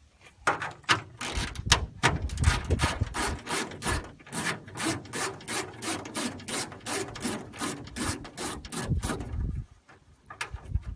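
Quick back-and-forth scraping strokes, about three or four a second, from a hand tool working a hood vent free of its backing plate. The strokes stop a little before the end, and a few more follow.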